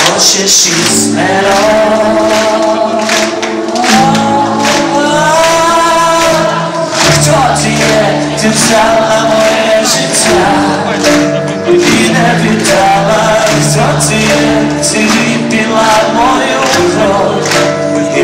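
Live rock band playing, with a singing voice over drums, bass guitar and keyboard; the melody is held in long, gliding notes with no clear words.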